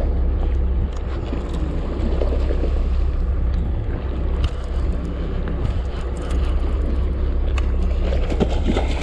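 A boat engine running steadily with wind buffeting the microphone, and scattered light clicks and knocks from a conventional fishing reel being cranked as a hooked fish is reeled in.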